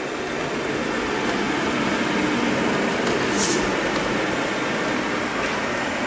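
Viomi V3 Max robot vacuum-mop running while vacuuming and mopping: a steady whir of its suction fan and brushes.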